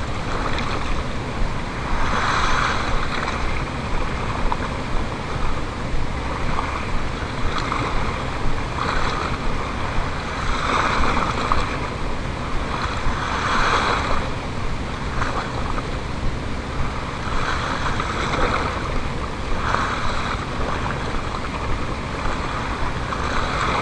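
Small sea waves washing and splashing against a paved shore edge, swelling every couple of seconds, over a steady low rumble of wind on the microphone.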